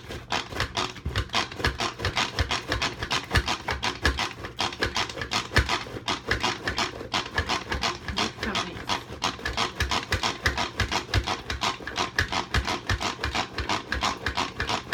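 Pampered Chef manual food processor being worked by its pull cord again and again, its blades spinning through tomatoes. Each pull gives a short whirring, chopping stroke, in a fast, even rhythm.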